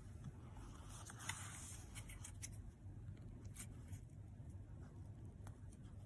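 Faint handling noises as hands pick up a plastic squeeze tube and a hair clip on its card: a brief rustle about a second in, then a few light clicks, over a low steady hum.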